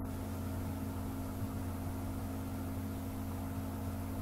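Steady low electrical hum with an even hiss, the background noise of the recording.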